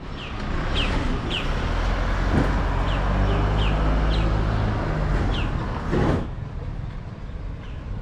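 A motor vehicle's engine runs close by with a steady low hum and rushing noise, cutting off suddenly about six seconds in. Small birds give short, high, falling chirps throughout.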